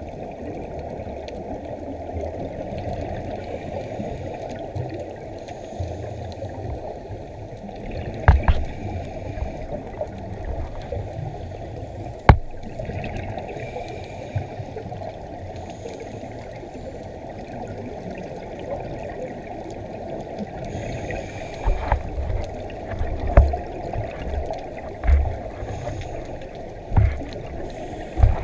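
Muffled underwater noise heard through a GoPro's waterproof housing: a steady low water rush, broken by low rumbling bubble bursts from scuba regulators and a few sharp clicks and knocks.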